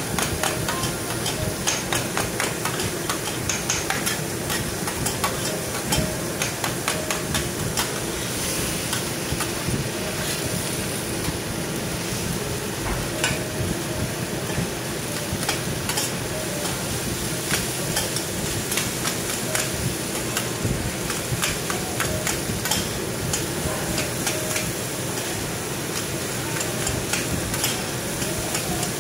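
Metal spatulas scraping and clacking on a steel teppanyaki griddle as egg and rice are chopped and turned, with many short irregular clacks over a steady frying sizzle.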